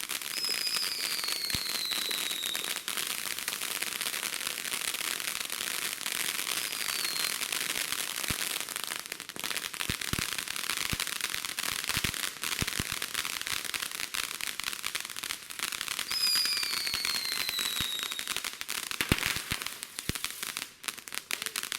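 Consumer fireworks crackling continuously with a dense stream of small pops. A whistle that falls in pitch sounds twice, near the start and again about two-thirds through, each lasting a couple of seconds.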